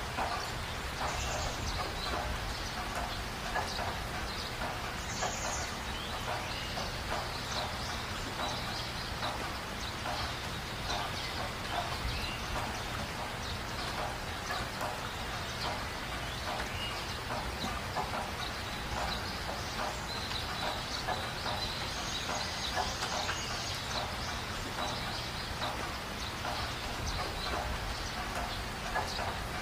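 Many birds calling at once: a steady, dense chatter of short calls that keeps up without a break, with a few brief higher notes now and then.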